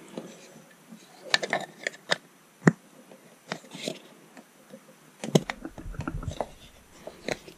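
Scattered plastic clicks and knocks from 3D-printed PETG fan-duct parts being handled and pressed together in a tight fit.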